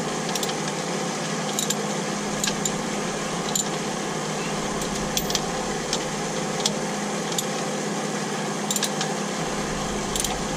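Scattered metallic clicks of a ratchet wrench snugging the nuts on a propeller shaft coupling, over a steady machinery hum.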